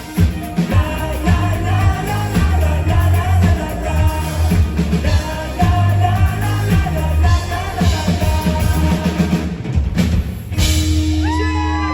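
Live rock band playing with a singer and drum kit, ending on a held final chord about ten seconds in, as the crowd starts whooping and cheering.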